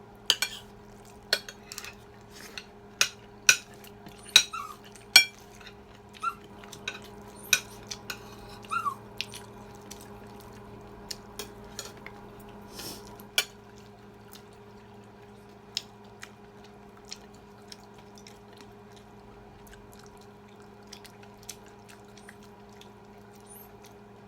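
Cutlery clinking and scraping on plates while eating: sharp clicks, frequent for the first dozen seconds, then only now and then, over a steady low hum.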